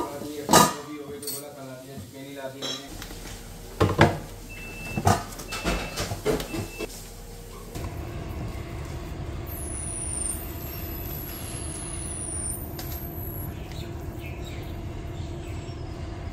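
Dishes and a container clattering in a kitchen, with three short high beeps, as the marinated chicken is covered and put away. About halfway through it changes to a steady outdoor hum like distant traffic, with repeated high falling chirps.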